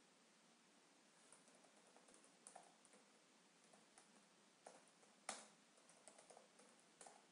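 Faint computer keyboard typing: irregular, scattered keystrokes, with one louder key press about five seconds in.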